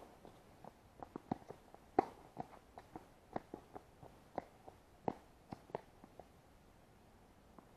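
Faint, irregular short taps on a hard tennis court, about three a second, thinning out after about six seconds.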